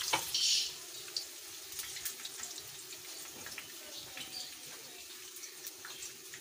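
Hot oil sizzling around besan-coated colocasia leaf rolls shallow-frying in a pan, a steady hiss with scattered small pops. A brief louder hiss flares about half a second in, then the sizzle settles softer.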